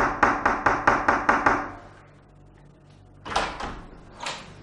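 Rapid knocking on a closed door: a quick run of about eight raps, then two more separate knocks near the end.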